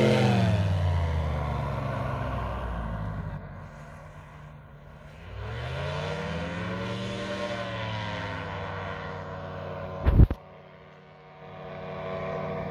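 Paramotor engine and propeller passing by, the note dropping in pitch and fading as it flies away. About five seconds in, the engine note rises and falls again, then runs on steadily. A brief loud knock about ten seconds in.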